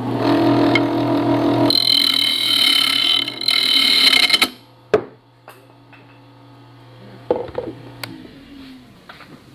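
Wood lathe running while a gouge cuts a spinning ash blank: a steady motor hum under a hissing cut that turns to a higher, ringing whine. The cut stops suddenly about four and a half seconds in, and a sharp knock follows as the workpiece comes loose from its chuck, on an over-cut dovetail tenon. The lathe hum carries on, quieter, until it stops about eight seconds in.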